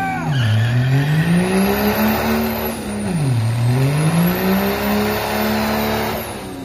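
Cummins inline-six turbodiesel in a manual Ram pickup revving hard during a burnout. The engine note climbs, drops sharply about half a second in and again about three and a half seconds in as it is shifted up through the gears, then climbs again and falls away near the end.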